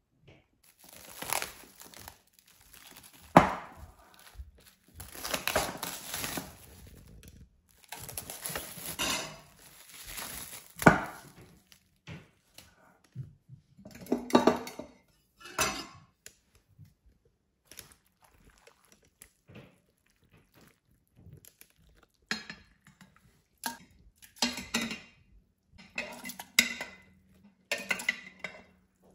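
Plastic cling film crinkling as it is peeled off a glass bowl, with two sharp knocks on the worktop. Then a stainless steel ladle clinks and scrapes against glass in short separate clatters as fermented plums are scooped into a glass jar.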